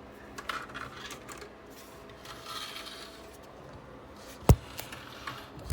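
Handling noise: scattered light clicks and rubbing of hard objects, with one sharp knock about four and a half seconds in and a couple of clicks near the end.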